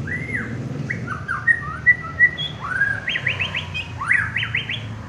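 White-rumped shama (murai batu) singing: a varied run of clear whistled phrases, with arched and sliding notes, then quick series of rising notes about three seconds in and again just after four seconds.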